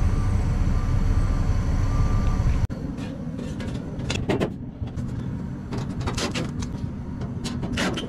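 Gas furnace running with a steady low rumble from its inducer motor and burner, now firing after its clogged pressure-switch port was cleaned out. It cuts off abruptly about two and a half seconds in; after that comes a series of brief scrapes and clunks as the sheet-metal louvered front panel is handled and fitted back on.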